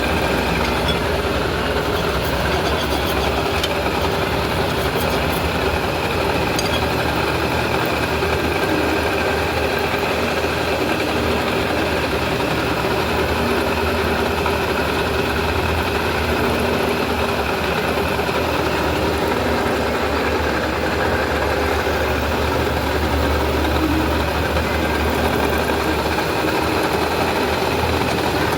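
Machine tool running steadily as it cuts a keyway into a stainless steel shaft: a constant mechanical hum with several held steady tones.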